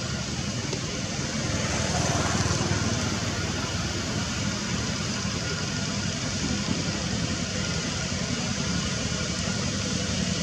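Steady low rumble of motor traffic with an even background hiss.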